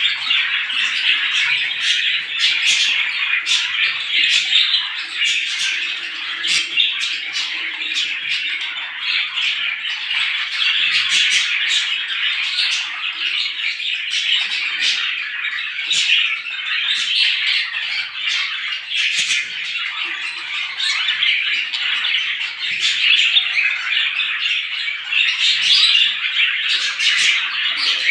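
A dense chorus of many small birds chirping and chattering at once, busy and unbroken, with many short sharp notes.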